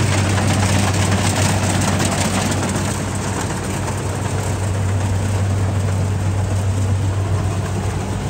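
Rice combine harvester's engine running at a steady speed with a low, even hum under a rushing noise.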